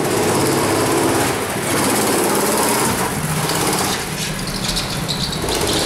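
Small petrol engines of children's go-karts running as the karts drive past, the engine note shifting in pitch.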